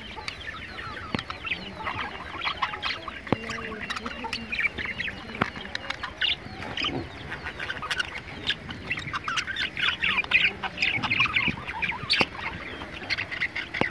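A cage of budgerigars chirping and chattering, many short high calls overlapping without a break, with a few sharp clicks among them.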